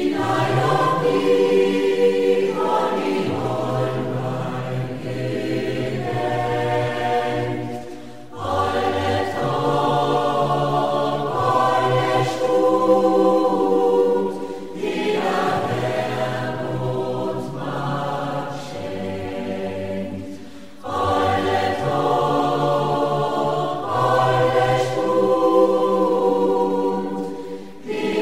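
Mixed choir of men's and women's voices singing, played from a CD recording. The singing runs in long phrases with short breaks about 8 and 21 seconds in.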